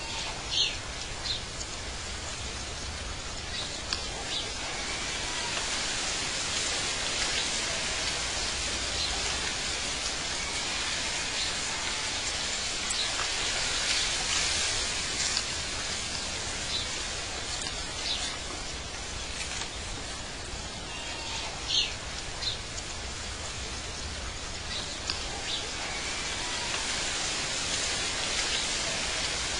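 Outdoor nature ambience: a steady, even hiss with a few short, high bird chirps scattered through it.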